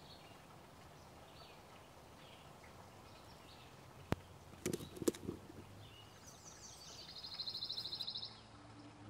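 Faint outdoor ambience of small birds chirping now and then. Just after the midpoint come a few sharp clicks and knocks, and near the end a rapid high trill lasting about a second.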